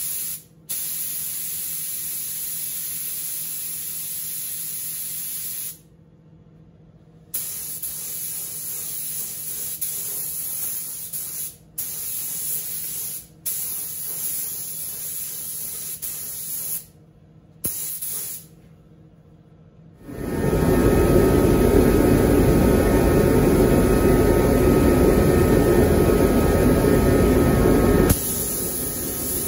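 Paint spray gun hissing with compressed air, stopping and restarting several times. About two-thirds of the way in, a much louder, deeper rushing noise runs for around eight seconds, then the hiss returns.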